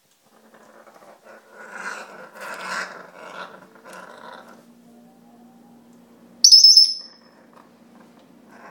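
African grey parrot growling in rough bursts for about four seconds, then one short, loud, high-pitched whistle about six and a half seconds in.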